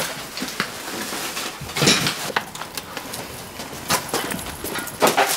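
Irregular knocks, thumps and clatters of leftover household belongings being handled and cleared out, over a steady hiss. The louder knocks come about two seconds in and near the end.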